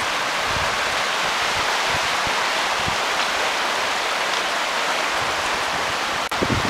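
River rapids rushing over rocks: a steady, even hiss of whitewater that breaks off sharply near the end.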